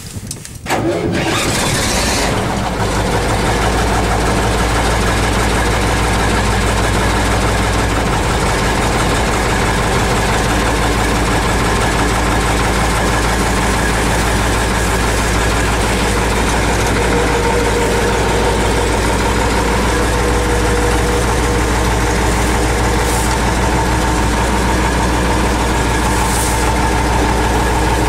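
Kharkiv T-150K tractor's diesel engine, heard from inside the cab, cranked and catching under a second in, then settling into a steady idle. Two short hisses come near the end.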